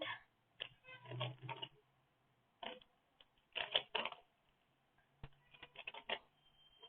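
Plastic Rubik's cube being turned fast by hand during a speed solve: irregular clusters of clicking and clacking layer turns, with short pauses between them.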